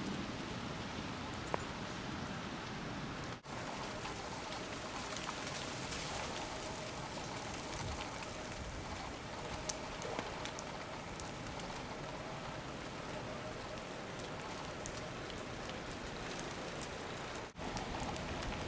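Steady patter of wet snow and rain falling on surfaces during a snowstorm: an even hiss with scattered small ticks of drops. It breaks off briefly twice.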